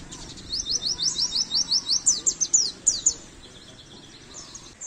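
White-eye (pleci) singing a fast series of high, rising chirps, about five a second for two and a half seconds, ending in a few sharper falling notes; a shorter phrase starts near the end.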